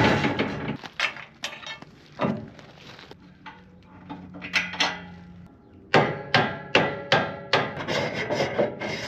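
Repeated sharp metal clanks and knocks, some ringing briefly, from work on a trailer's spring-loaded ramp as it is taken off. They thin out in the middle and come quickly again about six seconds in.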